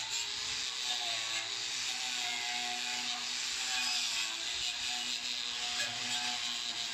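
Angle grinder with an abrasive wheel running steadily against a metal door, scouring off old paint before repainting, with music playing underneath.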